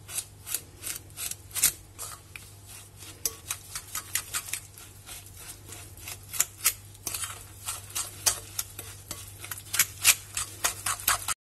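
A metal fork stirring and mashing a thick almond-cream mixture in a glass bowl, with irregular clicks and scrapes of the fork against the glass, several a second. It cuts off suddenly near the end.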